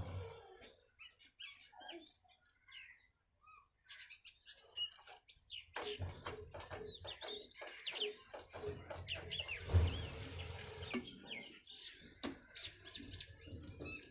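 Small birds chirping in quick, repeated short calls, thickest in the second half, with scattered sharp clicks.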